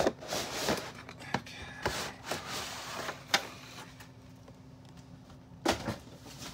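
Cardboard toy box being handled and pulled open: rustling, scraping and clicking of cardboard and packaging for about three and a half seconds, then quieter, with a short thump near the end.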